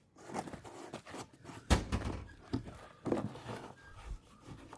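A few irregular knocks and thuds from objects being handled, the loudest a sharp, deep thud a little under two seconds in.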